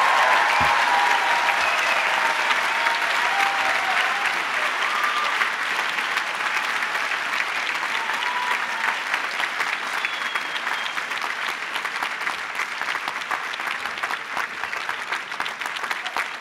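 Large audience applauding at the end of a speech, strongest at the start and easing off gradually.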